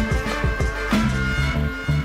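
Background music: a bowed string melody with held notes over a bass line and drum beats.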